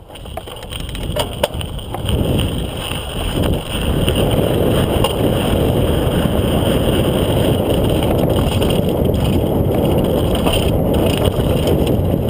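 Wind rushing over a GoPro's microphone and bicycle tyres rumbling on a dirt trail as a downhill mountain bike gathers speed; the noise builds over the first few seconds, then holds steady and loud.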